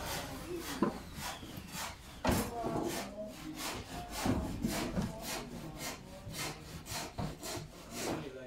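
Wood being worked by hand in steady, evenly spaced rasping strokes, about three to four a second, with a few louder knocks.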